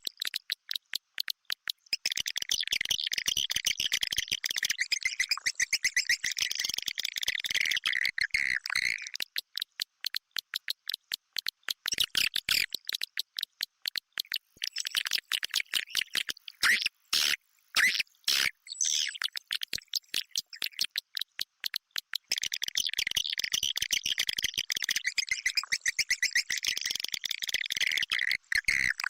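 Swiftlet-house lure recording of swiftlet calls: a dense, rapid chatter of high chirps and clicks, coming in long bursts with short pauses between.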